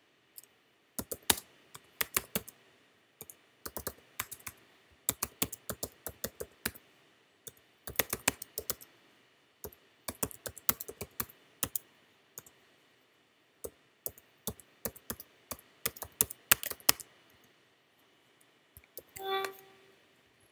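Computer keyboard typing a command in quick bursts of keystrokes with short pauses between them. The typing stops about three seconds before the end.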